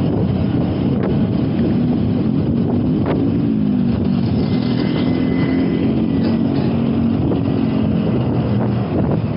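Wind buffeting the microphone on a moving bicycle in city traffic, with a nearby motor vehicle's engine drone that sets in a second or two in and fades away near the end.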